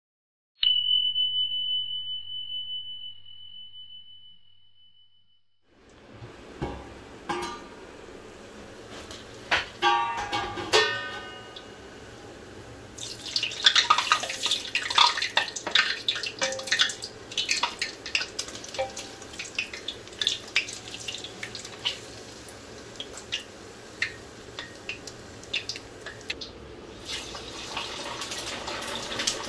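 A single bright chime rings out and fades over about five seconds. It is followed by kitchen clatter: metal utensils clinking and knocking, with water running from a tap, busier from about halfway through.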